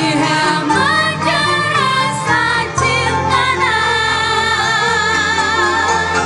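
Live Sundanese–Minangkabau fusion ensemble playing, with a singer's ornamented melody over a steady low bass. About halfway through, the melody settles into a long held note with a wavering vibrato. Kacapi zithers, guitars, accordion, cello and violin are in the ensemble.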